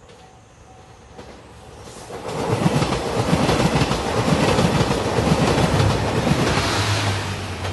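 JR Shikoku 2700 series diesel limited express train passing close by, its noise building from about two seconds in, with a rhythmic clatter of wheels over the rail joints, then easing off near the end.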